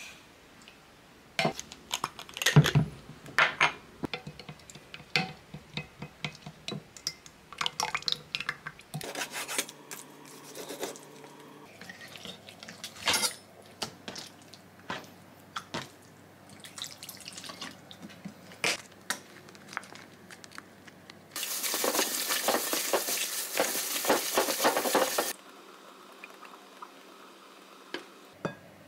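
Kitchen prep sounds: a measuring spoon clinking and tapping against a glass measuring jug as a sauce is mixed, then a knife cutting raw chicken on a wooden chopping board, with scattered clicks and knocks. In the second half a steady rushing noise lasts about four seconds.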